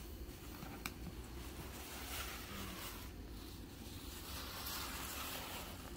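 Tissue paper wrapping rustling and crinkling as it is gathered up by hand, in soft uneven swells, with one light tap a little under a second in.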